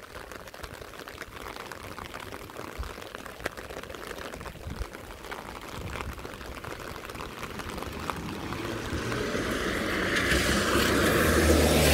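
A light patter of rain, then a car coming along the wet road, its tyres hissing on the wet tarmac and growing louder toward the end.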